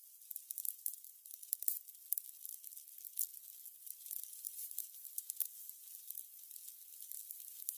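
Burning candles crackling: a faint steady hiss with frequent irregular small crackles and ticks.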